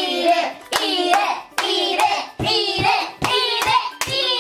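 Children's high voices with sharp hand claps in a steady rhythm, a clap and a voice about every three quarters of a second.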